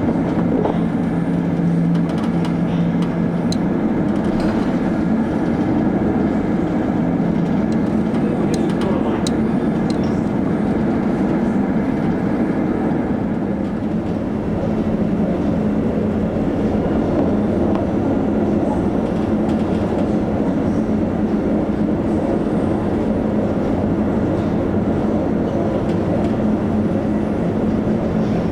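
Steady, loud rumble and low hum of the ferry Maersk Anglia under way in a force 9 gale, with a few faint clicks about eight to ten seconds in.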